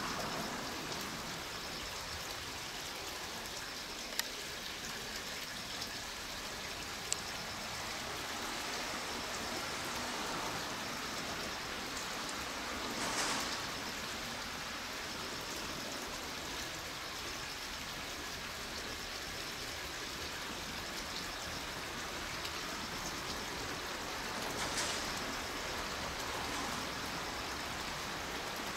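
Steady outdoor background hiss with no distinct machine sound, swelling briefly twice, with two sharp clicks about four and seven seconds in.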